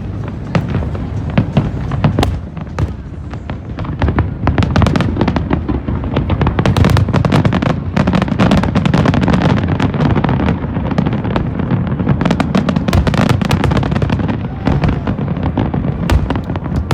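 Large fireworks display: a dense, rapid barrage of bangs and crackles over a continuous low rumble of booms, growing denser and louder about four seconds in.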